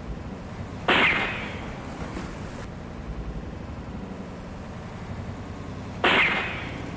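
Waves breaking against the rocks of the shoreline: two sudden crashes about five seconds apart, each washing off quickly, over a steady hiss of sea and wind.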